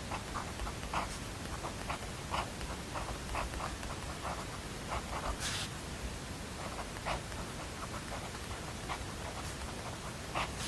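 Pen writing on paper: light, irregular taps and scratches over a steady white-noise hiss, with one brief swish about five and a half seconds in.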